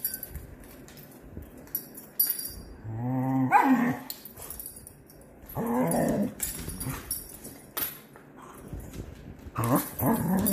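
Dogs play-fighting, with bursts of play growls and barks about three seconds in, around six seconds, and again near the end, and scattered sharp clicks between.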